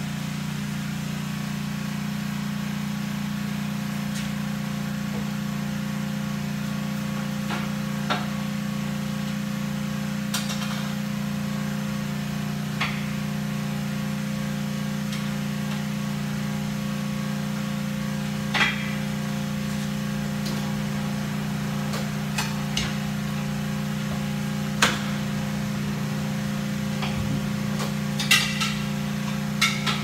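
Steady low machine hum, with sharp knocks every few seconds from tools and a wheel being worked on a tire-changing machine; the loudest knocks come a little before the middle and in a cluster near the end.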